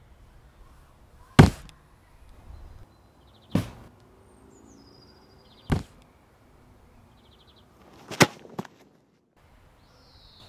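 Sharp single knocks or clicks, about two seconds apart, with two in quick succession near the end and faint high chirps in between.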